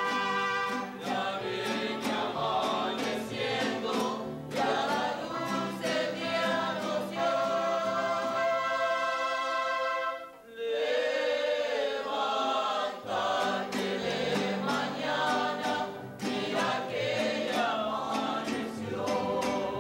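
Mariachi band singing together in chorus over its guitars and violins, in long held notes, with a short break about halfway through.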